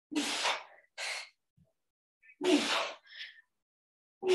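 A woman's hard breathing during a dumbbell exercise: three forceful exhales about two seconds apart, with quick inhales between them.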